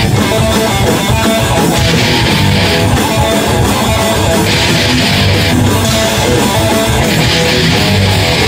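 Heavy metal band playing live: distorted electric guitars, bass and drums, loud and dense, with cymbal crashes coming and going over the riffing.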